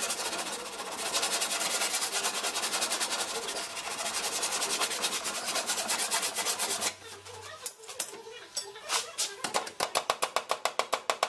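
Hand sanding of body filler on a car's front fender with a long sanding board: rapid back-and-forth rubbing strokes that stop about seven seconds in. Near the end a regular rhythmic beat of music starts.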